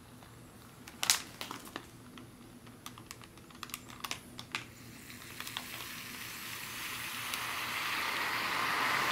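Flameless ration heater's magnesium-based element reacting with the added water: a fizzing hiss starts about halfway through and grows steadily louder as the reaction gets going. Before it, a few light clicks and crinkles from the plastic heater bag being held.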